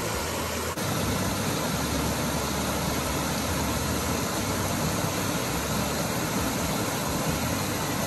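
Small waterfall cascading over rock ledges into a shallow pool, a steady rushing of water.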